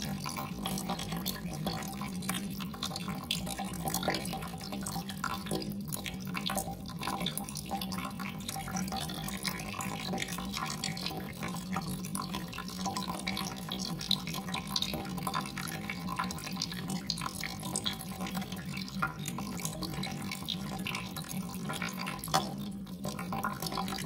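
Water trickling and dripping steadily, a dense patter of small drips over an even rush of water.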